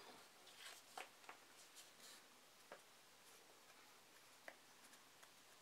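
Near silence with a few faint ticks and rustles of card stock being handled, as two glued pieces of watercolour paper are pressed together between the fingers.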